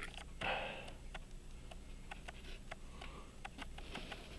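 Faint, irregular small clicks of tweezers and tools handling pocket watch movement parts, with a short rushing noise about half a second in.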